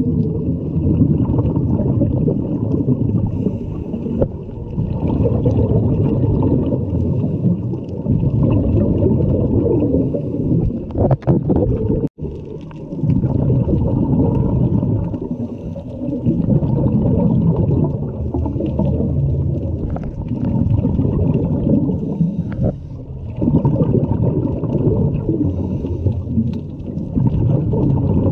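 Underwater sound heard through a GoPro housing: a dull, low rumble of scuba divers' regulator breathing and exhaled bubbles, swelling and easing every few seconds. It cuts out for an instant about twelve seconds in.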